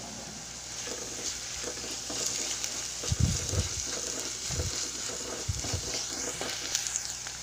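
Crushed chilli and shallot paste sizzling in coconut oil in an earthenware curry pot, being stirred, with a steady frying hiss. A few dull knocks come in the middle.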